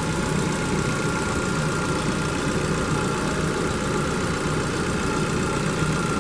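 Chevrolet Tornado Max Cab's four-cylinder petrol engine idling steadily, heard with the hood open, with a faint steady high whine over it.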